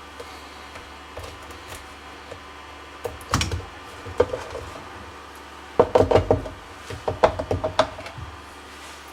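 Scattered knocks and clacks of hard objects being handled, a single one about three seconds in, another about a second later, then a quick run of them for about two seconds past the middle, over a faint steady low hum.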